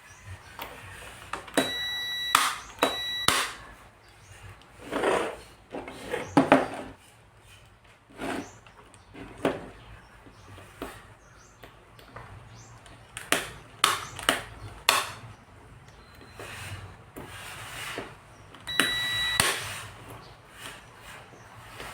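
Irregular clicks and knocks of small parts and tools being handled during a transfer-switch teardown. Three short, steady electronic beeps come about two seconds in, again a second later, and once more near the end.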